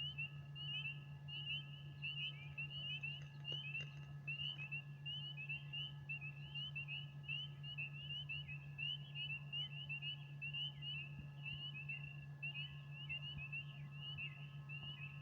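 Spring chorus of frogs chirping: many short, rising peeps overlapping thickly and without pause, over a steady low hum.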